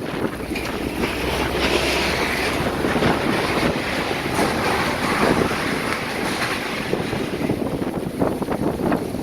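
Storm wind blowing hard and gusting, buffeting the microphone with a loud, continuous rushing noise.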